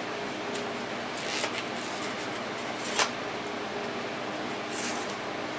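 Steady hum of a microwave oven cooking bacon, with rustling of a margarine stick's paper wrapper being handled a couple of times and one sharp click about three seconds in.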